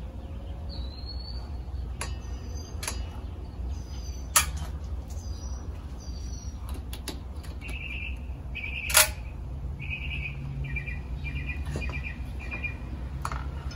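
Small birds chirping over a steady low rumble: short rising chirps in the first half, then a quick run of chirps in the second half. Two sharp clicks come about 4 and 9 seconds in, the second the loudest.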